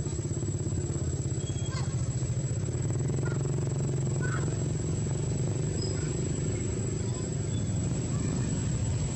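A small engine running steadily at idle, with a fine rapid pulsing in its low hum. A thin steady high whine sits above it, and a few faint short chirps come through.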